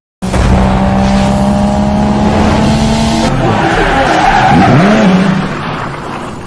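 A loud engine sound that starts suddenly, its steady tone drifting slightly lower. About four seconds in a screech wavers up and down, then the sound fades away.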